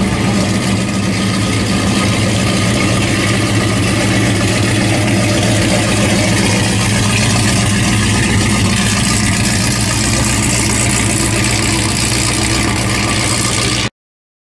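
Third-generation Chevrolet Camaro's V8 idling steadily close by, with an even exhaust note that holds level. The sound cuts off abruptly near the end.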